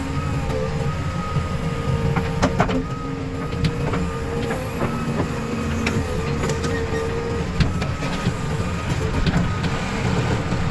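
Diesel engines of JCB 3DX backhoe loaders and tractors running steadily, with a faint steady whine over the rumble and scattered short knocks.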